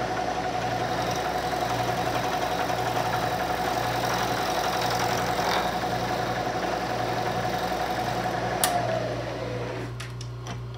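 Manual knee mill spindle running while an end mill cuts a flat on a small brass valve part, a steady machining whine. About nine seconds in there is a click, then the spindle winds down with a falling pitch.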